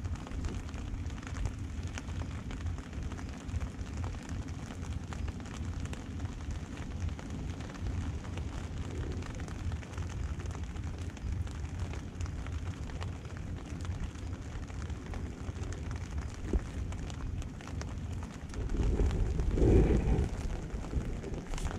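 Steady low outdoor rumble with faint crackling, swelling louder for a couple of seconds near the end.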